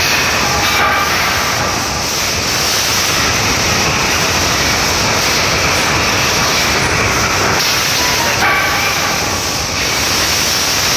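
Steady loud rushing background noise with no clear pitch, with faint higher tones briefly about a second in and again around eight and a half seconds in.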